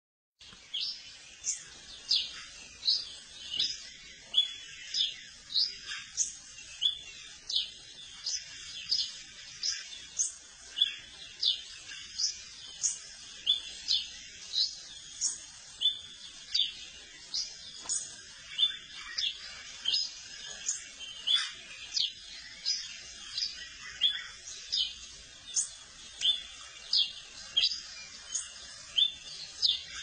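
Flock of yellow-billed cardinals calling while feeding: sharp, high chip notes repeated about once every ¾ second, with fainter chirps between.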